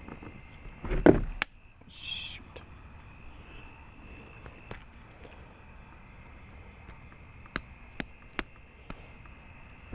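Steady high chirring of crickets, with a loud knock about a second in and a few sharp clicks later on.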